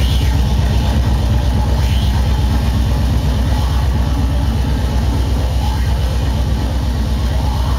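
Speedcore played loud over a club sound system: a very fast, even barrage of heavy distorted kick drums under a wash of noisy synths.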